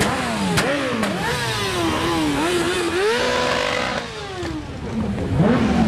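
Several motorcycles riding slowly past, their engines revved hard again and again, each blip climbing sharply and falling away. About three seconds in, one engine is held at high revs for nearly a second before dropping off.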